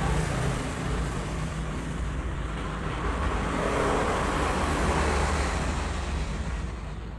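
Steady rumble and hiss of road traffic, easing off near the end.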